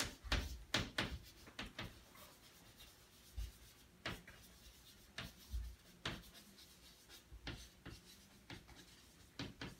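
Chalk writing on a chalkboard: faint, irregular taps and short scratches as words are written out.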